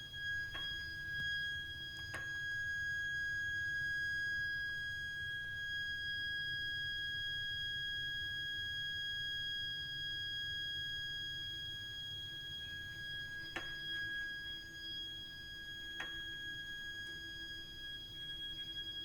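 Continuous shrill, high-pitched whistle from a heating system's heat interface unit (HIU) and pipework: one steady tone held without a break over a low hum, with four faint clicks. It is the abnormal shrieking noise fault that the system keeps producing.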